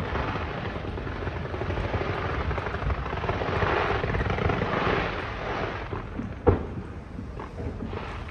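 Aerial fireworks: a hissing noise swells and fades over several seconds, then a single sharp bang of a shell bursting about six and a half seconds in.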